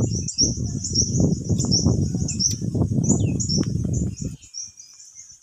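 Wind buffeting the phone's microphone in loud, uneven low gusts that die away about four and a half seconds in, over continuous high, rapid bird chirping.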